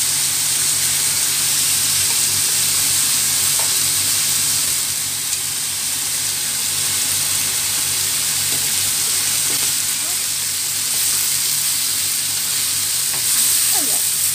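Marinated pork leg pieces frying in hot oil in a nonstick pan, a steady sizzle.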